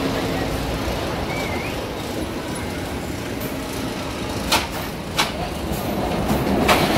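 Wooden roller coaster train rolling slowly through the station, its wheels rumbling on the track, with a few sharp clacks about four and a half, five and almost seven seconds in.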